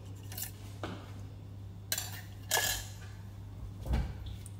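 Kitchenware being handled: about five scattered clinks and knocks of dishes and utensils, the loudest a little past halfway and a duller thump near the end, under a steady low hum.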